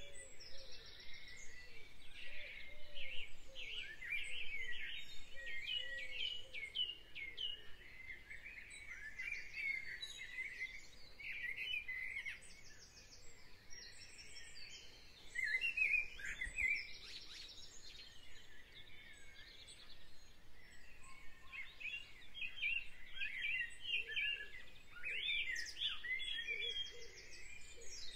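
Birds chirping and singing, a dense chorus of short, quick calls and trills, with lower wavering calls near the start and again near the end.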